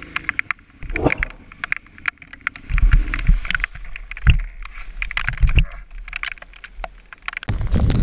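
Raindrops clicking sharply on the microphone over a motorcycle engine running, with scattered low thuds. A loud low rumble sets in near the end.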